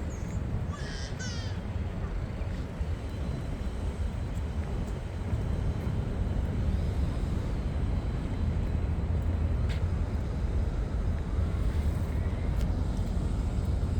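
Steady low outdoor rumble of city ambience that grows slightly louder about five seconds in, with a brief bird call about a second in.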